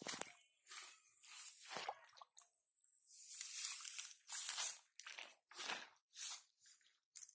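Hands groping through wet grass and mud: an irregular run of short rustling, scraping strokes, one or two a second, with a longer stretch about three seconds in.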